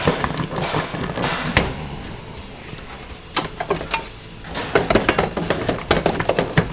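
Steel transmission parts clinking and knocking as they are lifted out and set down during a Ford 5R110W teardown: scattered sharp metal clicks, coming thickest in the second half.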